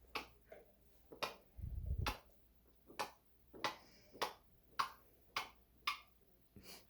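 African grey parrot making a series of short, sharp clicks, roughly one every half-second to second, with a short low thud about two seconds in.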